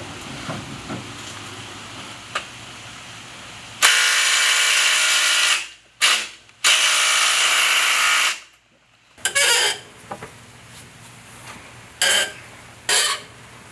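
Power tool, likely an impact wrench, run in two long bursts of about two seconds each and then in three short bursts near the end, working a rusted bolt loose.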